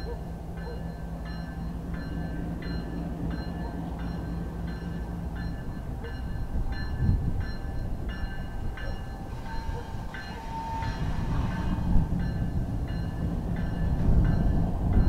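BNSF diesel-electric locomotive approaching slowly, its engine running and growing louder toward the end, with a bell ringing steadily about twice a second.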